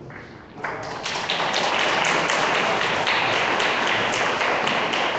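A roomful of people applauding: the clapping begins about half a second in and quickly swells to a dense, steady round.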